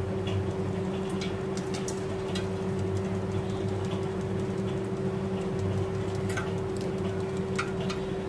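A steady mechanical hum with a few faint light taps and ticks, from a plastic jar being shaken and handled over a steel bowl.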